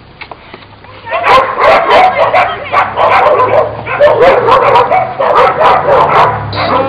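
A dog barking over and over in quick, loud yaps, starting about a second in and breaking off just before the end.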